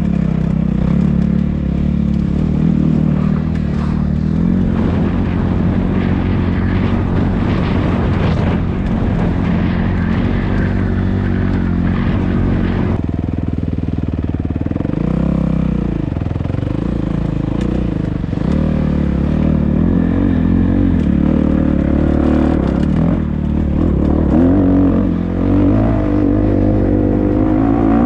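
Dirt bike engine running hard while being ridden. It holds fairly steady at first, then its revs rise and fall repeatedly with the throttle and gear changes during the second half.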